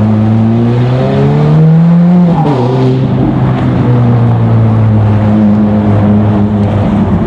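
Ferrari F430 Spider's 4.3-litre V8 through a full-line Capristo exhaust, heard from inside the car. Revs climb for about two seconds, drop sharply at an upshift about two and a half seconds in, then hold steady at lower revs.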